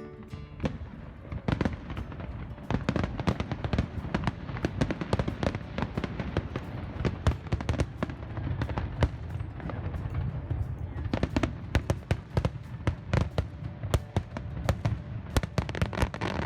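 Aerial fireworks show: a rapid, irregular string of sharp bangs and pops, several a second, over a continuous low rumble.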